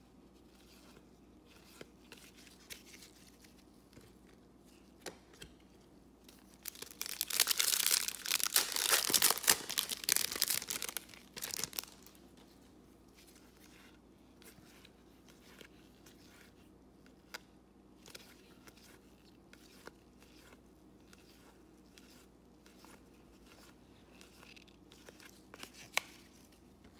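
A trading-card pack wrapper crinkling and tearing loudly for about four seconds in the middle, as a pack of baseball cards is opened. Before and after it, soft clicks and slides of the cards being flipped through one by one.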